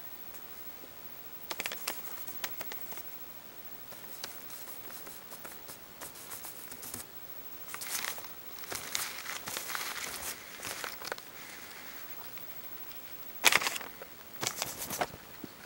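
Pet rat rummaging in shredded paper bedding: irregular bursts of paper rustling and crinkling, loudest near the end.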